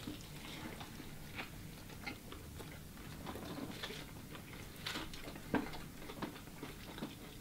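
Two people chewing mouthfuls of Wendy's spicy bacon jalapeño chicken sandwich, quiet, with scattered soft crunches and mouth clicks. A couple of louder crunches come about five seconds in.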